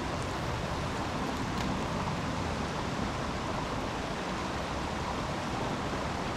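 Steady rushing of a mountain stream's flowing water.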